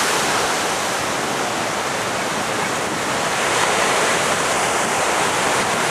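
Ocean surf breaking, a steady rush of white-water noise with no separate crashes standing out.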